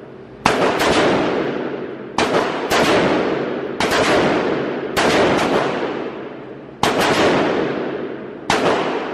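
AR-15 rifle fired one shot at a time on an indoor range: about seven sharp cracks at irregular intervals, each with a long echoing decay off the range walls.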